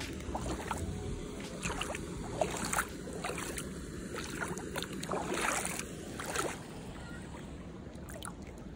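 Bare feet splashing and sloshing through shallow water over pebbles, with small waves washing around them. Several separate splashes come in the first six seconds, and it grows quieter near the end.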